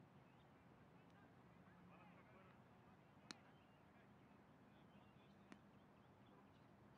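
Near silence: faint open-air ambience with a low steady hum, broken by two faint sharp clicks about three and five and a half seconds in.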